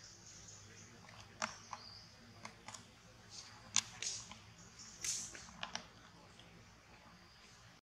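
Quiet forest ambience with a faint steady high hiss, scattered sharp clicks and a few short high squeaks.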